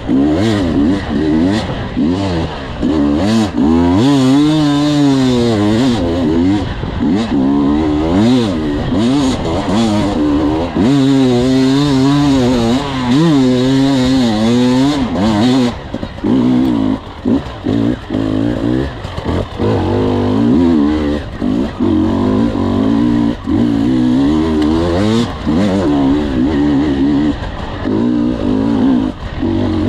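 Enduro dirt bike engine, heard close from the rider's on-board camera, revving up and down constantly as the throttle is worked over rough forest singletrack. The note drops out briefly several times in the second half.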